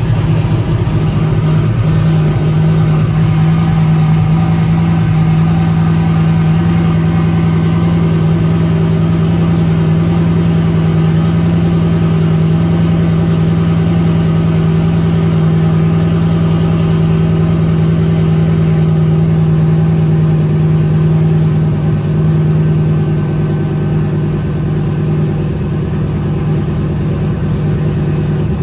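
Turbocharged 5.3-litre LS V8 idling steadily at a raised warm-up idle of about 1100–1250 RPM. The rewired idle air control valve is now holding the idle speed on its warm-up target.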